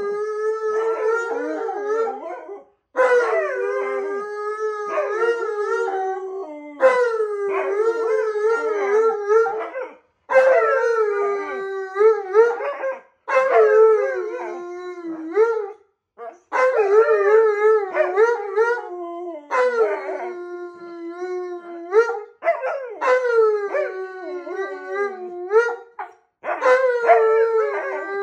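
An Alaskan Malamute and a Siberian Husky howling together in long, wavering howls with their voices overlapping. The howling comes in phrases of about three seconds, with short breaks between them.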